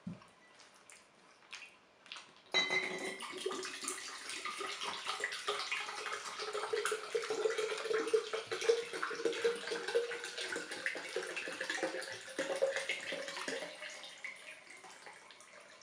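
Liquid poured from a bottle into a large glass beer mug: a long, steady splashing pour that starts suddenly about two and a half seconds in and tapers off near the end. Before it come a couple of soft knocks.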